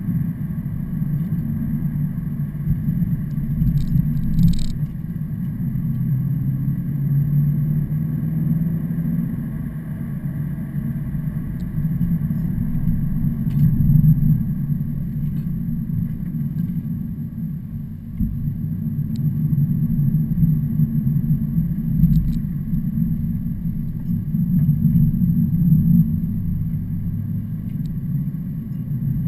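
Truck engine and road rumble: a steady low drone that swells and eases slowly, with a few faint ticks.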